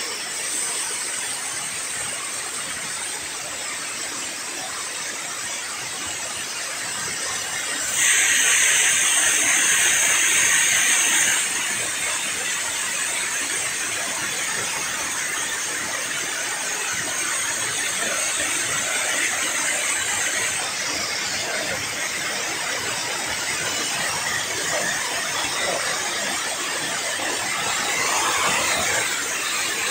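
Water pouring over a river weir spillway and churning white below it, a steady rushing noise. About eight seconds in, a louder, hissier stretch lasts about three seconds.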